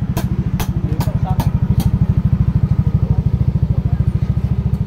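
Yamaha NMAX 155's single-cylinder four-stroke engine idling through a rebuilt aftermarket exhaust: a Honda Vario muffler body on a new stainless pipe. It makes a steady, fast, low pulsing note that swells slightly in the middle, with a few sharp clicks over it.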